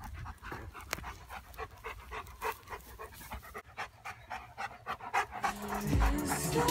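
Dog panting with quick, even breaths, about three a second. Music comes back in near the end.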